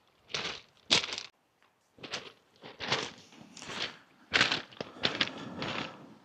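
Footsteps crunching over large beach pebbles, an uneven series of crunches with short gaps between steps.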